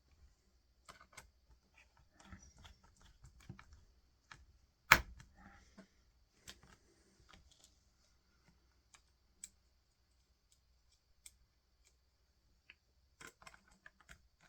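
Scattered small clicks, taps and light rattles of a laptop, its case and small screws being handled on a desk, with one sharp knock about five seconds in.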